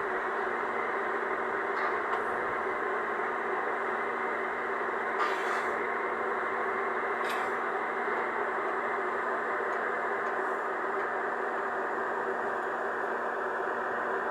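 Excavator engine running steadily, with two brief knocks about five and seven seconds in.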